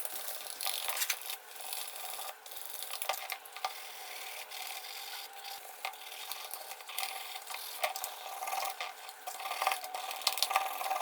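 An abrasive rubbing against a small part in quick, irregular scraping strokes, like sanding or filing a model-car part.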